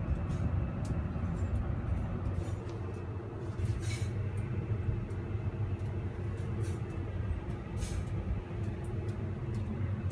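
Sanki bathroom exhaust fan running steadily: a low motor hum with rushing air from its outlet. Two light clicks come about four and eight seconds in.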